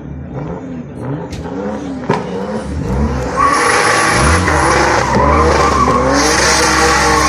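Turbocharged BMW E30's engine revving up and down, with two sharp cracks in the first two seconds. About three and a half seconds in, the rear tyres break loose and squeal steadily under high revs as the car spins donuts.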